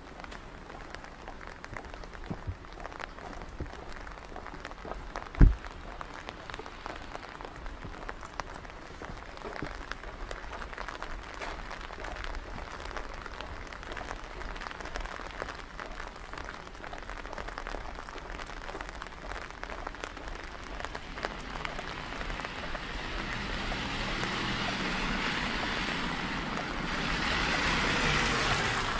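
Light rain pattering, with many small drop ticks over a steady wash. One loud thump comes about five and a half seconds in, and a rushing hiss swells up over the last several seconds.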